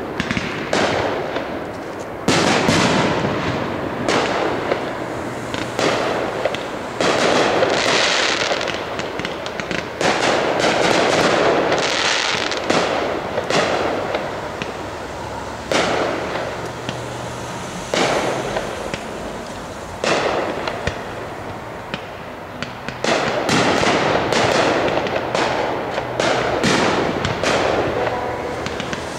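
Aerial fireworks shells bursting one after another. There are sharp bangs, each followed by a long noisy wash, and the bangs come faster and closer together in the last few seconds.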